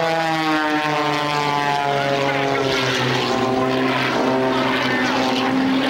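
An Extra aerobatic monoplane's piston engine and propeller running hard through a low pass and pull-up. The drone drops in pitch about half a second in, and again around three seconds in.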